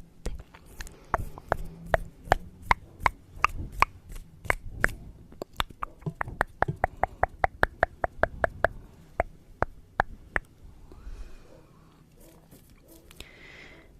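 A long series of sharp, close clicks, made as an ASMR trigger. They start at about two or three a second, speed up to a quick run of about six a second in the middle, then slow and stop, with a soft breathy hiss near the end.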